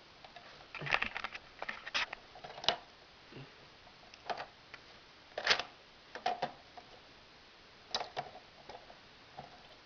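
Irregular, scattered clicks and clatters of Lego plastic parts being handled on a Lego gumball machine, a dozen or so sharp knocks with short gaps between them.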